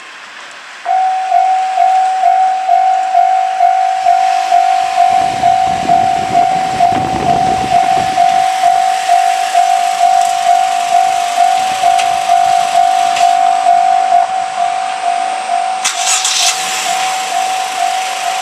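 Japanese level crossing's electronic warning bell starting up about a second in and ringing an even two-tone-free single-pitch ding about twice a second, the signal that a train is approaching. A low rumble passes under it in the middle, and a short hiss comes near the end.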